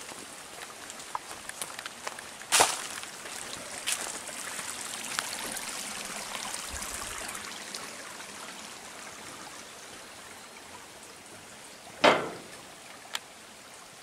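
Small rainforest creek running and splashing, swelling in the middle and easing toward the end, with light footsteps on the track and two loud scuffs, about two and a half seconds in and near the end.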